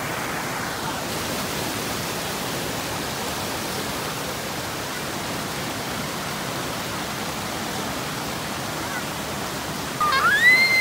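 Steady rush of a small waterfall cascading over rock slabs. Near the end a high voice calls out, rising in pitch and then held for about a second.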